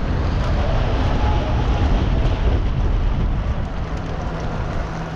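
Wind buffeting the microphone of a bicycle rider's camera while riding at speed, mixed with the rumble of tyres on the road. A faint steady low hum joins near the end.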